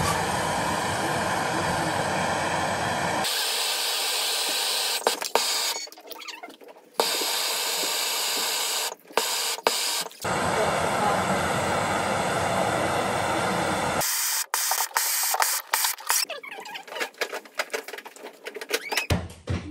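Handheld gas torch on a yellow fuel cylinder burning with a steady, loud hiss as its flame heats a pipe fitting at the water valve. The hiss cuts off and returns a few times, then about three-quarters through gives way to a run of clicks and knocks.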